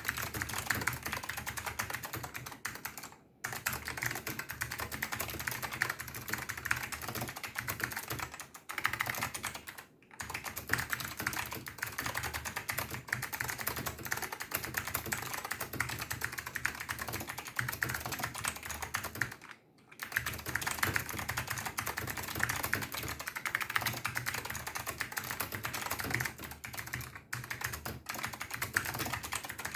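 Fast continuous typing on an NTC KB-6251EA keyboard with wax-lubed Alps SKCM White switches in a roomy plastic case, a dense run of key clicks broken by three short pauses.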